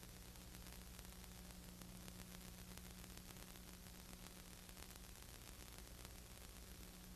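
Near silence: steady recording hiss with a low electrical hum and no race sound, as on a silent film transfer.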